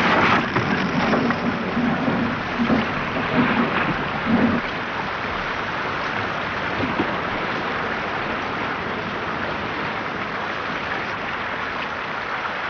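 Steady heavy rain, with a low, uneven rumble under it for about the first four seconds.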